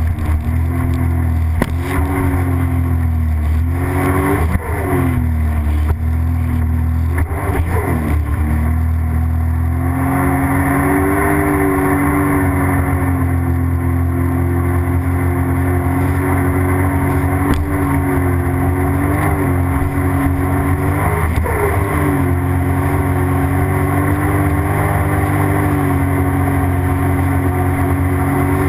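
Sea-Doo GTX jet ski engine running under way at cruising speed. For the first ten seconds its note rises and dips several times with a few sharp knocks as the hull meets chop, then it holds a steady pitch.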